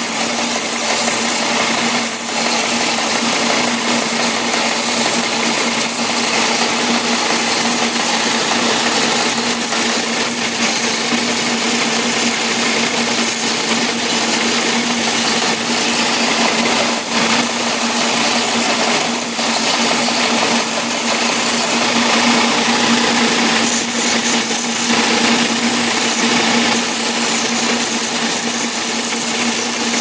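Belt sander running steadily with a constant motor hum, while a small block of wood is held by hand against the moving belt and sanded round into a knob.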